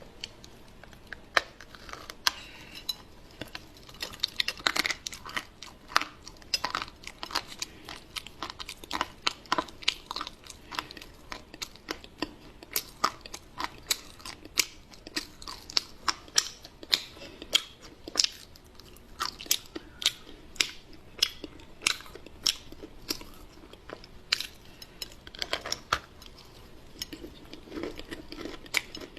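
Close-miked chewing of a crunchy, crumbly chocolate pie dusted with cocoa powder: a steady run of sharp, quick crunches, several a second, with softer wet chewing between them.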